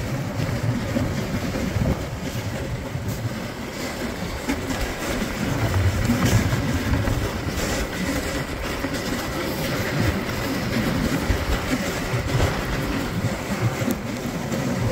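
Dog sled sliding over snow: a steady scraping rumble from the runners, with irregular small knocks and jolts as the sled bumps along.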